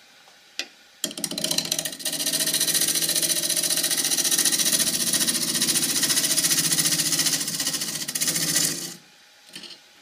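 Gouge cutting the outside of a spinning green casuarina bowl blank on a wood lathe: a loud, rough, rapidly pulsing cutting noise that starts about a second in and stops near the end, with a sharp click just before it.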